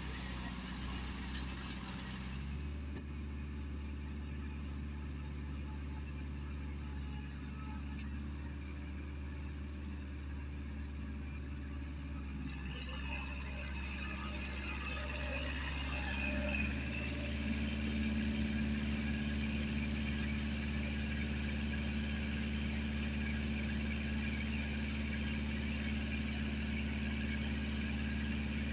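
Kubota L5018 tractor's diesel engine running steadily while it works a flooded rice paddy. About halfway through the engine grows louder and its hum steadier and stronger as the tractor comes closer.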